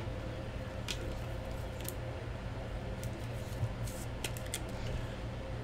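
Scattered faint clicks and plastic rustles as a trading card is handled and fitted into a rigid clear plastic card holder, over a steady low hum.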